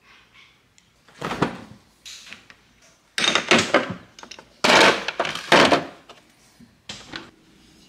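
Refrigerator door opened and a glass jar set into the door shelf among other jars and bottles, with several knocks and rattles of glass and plastic in quick clusters.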